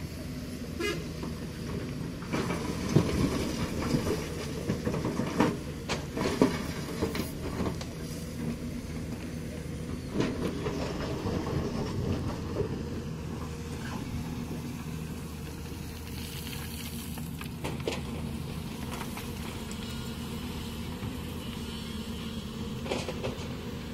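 Hyundai 220LC-7 crawler excavator's diesel engine running steadily while its bucket digs into a pile of river gravel and stones. Rocks clatter and grind against the steel bucket in two spells, from about two to eight seconds in and again around ten to thirteen seconds in, then only the engine goes on.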